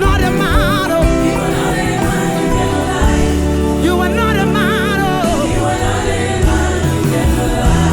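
Gospel music: a voice sings long notes that waver in pitch over a band accompaniment with a steady bass.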